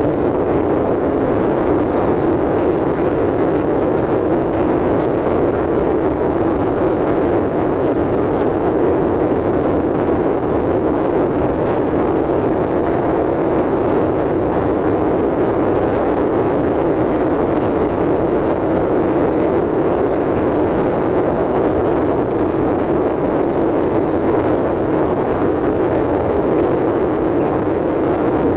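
Steady, even rushing noise inside a car's cabin, holding the same level whether the car is turning or standing in traffic.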